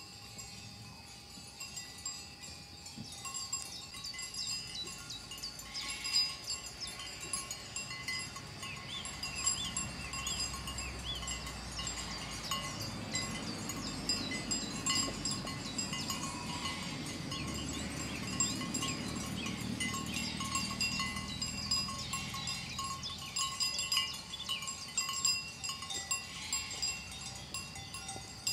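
Bells on a grazing flock of sheep and goats tinkling and jingling continuously as the animals move and feed, many small bells ringing at once.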